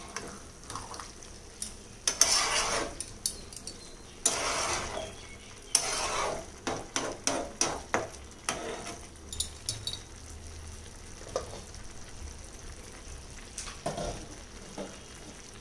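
A spoon stirring and scraping rice in a cooking pot on the stove. There are a few scraping strokes in the first six seconds, then a run of light clinks of the spoon against the pot, and a few more knocks later.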